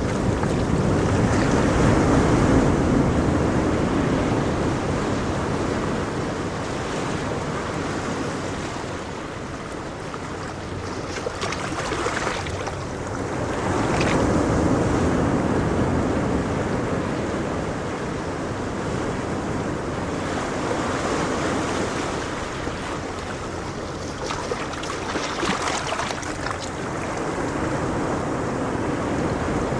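Ocean surf rolling in continuously, the wash swelling and fading over several seconds at a time, with a few sharper splashes.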